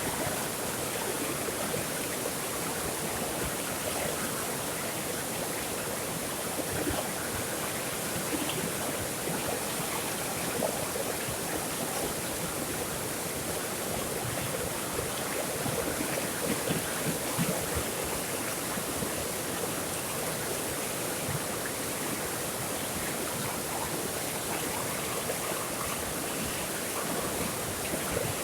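Water flowing steadily in a stream, an even rushing babble with small splashes throughout.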